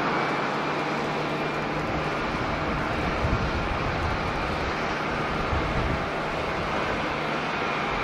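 Jet engines of a Boeing 737-800 airliner running in a steady, even roar as it rolls out along the runway after landing. Wind buffets the microphone with low rumbling gusts midway.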